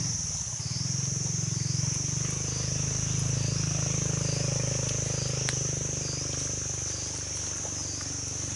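Chorus of buzzing insects, a steady high drone that swells and dips in an even rhythm a little more than once a second, over a steady low hum.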